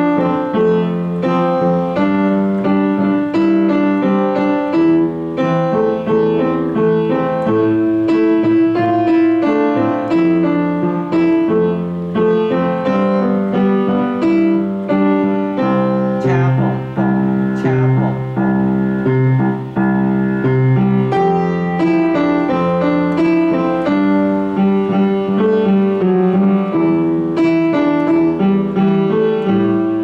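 Piano played with both hands: a melody over a left-hand bass-and-chord accompaniment in a steady 'boom-cha-boom' rhythm. It cycles through a C, F, G, Em, Am, F, G, C chord progression.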